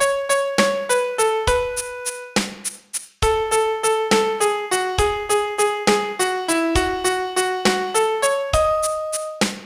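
Piano playing a song melody note by note over low bass notes in a lilting 6/8 rhythm, with a short break about two and a half seconds in before the melody resumes.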